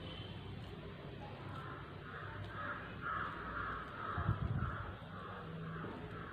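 A bird, faint, calling in a quick series of short rough calls, about two or three a second, starting about a second and a half in, over a low steady hum.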